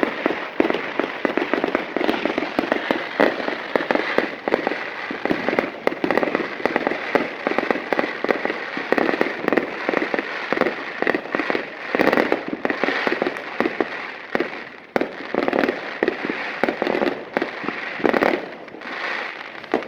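A long string of firecrackers going off in a rapid, continuous crackle of sharp pops, easing off briefly a couple of times near the end.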